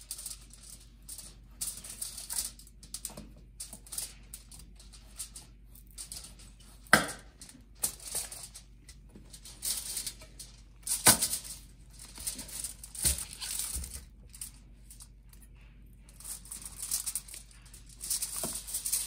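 Long kitchen knife sawing through a dry-aged bone-in ribeye rack between the rib bones, with scraping and rustling of the meat shifting on aluminium foil. A few sharp knocks stand out, the loudest about seven and eleven seconds in.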